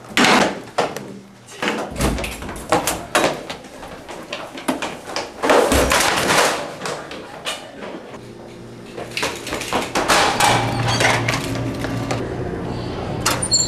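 A door opening and banging shut, with hurried footsteps and knocks, then a steady low hum with a few scattered knocks.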